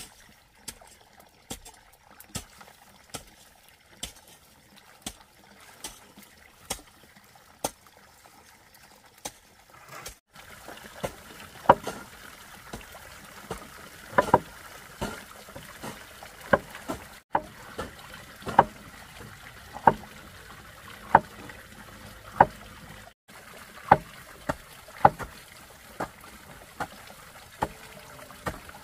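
Cleaver chopping yellow peppers on a wooden chopping board in steady strokes, roughly one a second, each with a short metallic ring from the blade. Water pours into a basin underneath, more clearly after about ten seconds.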